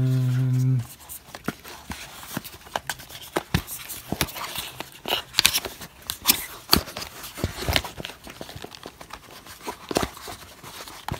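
A brief steady hum of a voice at the very start, then scattered clicks and rustling from handling Bose QuietComfort 35 headphones and fitting them into their fabric carrying case.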